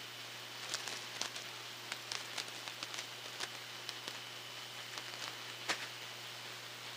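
Irregular sharp clicks and ticks over a steady hiss: ultrasonic sound made audible by a frequency down-converter.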